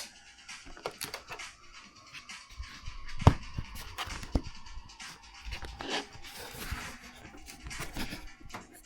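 Faint music under irregular knocks, clicks and rustling, with one sharp knock about three seconds in.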